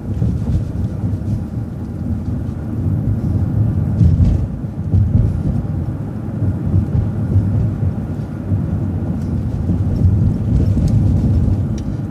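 City bus driving along a street, heard from on board: a steady low rumble of engine and road noise, with a few faint rattles and a heavier bump about four seconds in.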